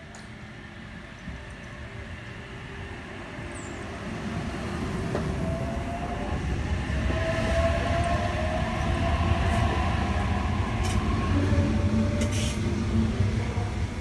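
Sydney Trains H-set (OSCAR) electric multiple unit pulling away and accelerating past, its traction motor whine rising in pitch as it grows louder, over a low rumble of wheels on rail. A few sharp clicks come in the second half as it passes.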